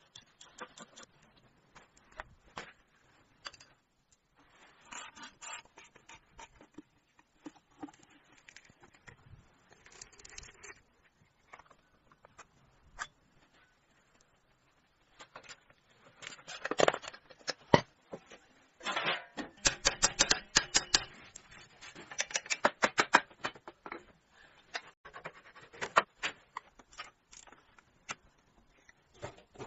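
Irregular clicking and tapping of hand work on metal parts, with a dense run of rapid clicks a little past halfway through.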